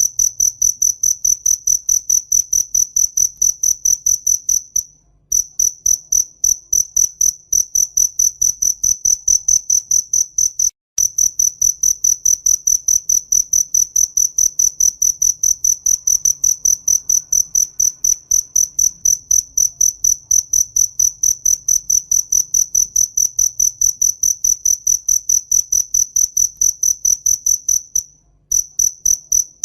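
A cricket chirping in a fast, even rhythm of about three high-pitched chirps a second, breaking off briefly three times.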